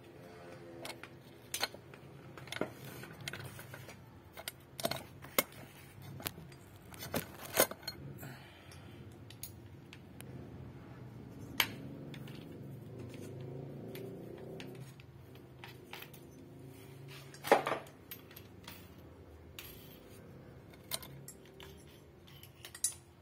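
Scattered metallic clinks and knocks as a motorcycle cylinder block and small tools are handled and set against each other during hand porting work, with one sharper knock about three quarters of the way through.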